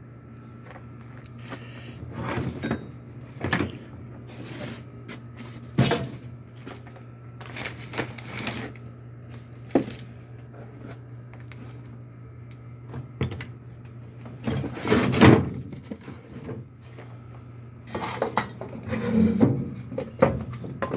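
Rummaging through stashed parts in search of spare lug nuts: irregular clanks, knocks and rattles of loose hardware being shifted, with a busier, louder spell of clatter about three-quarters through. A steady low hum runs underneath.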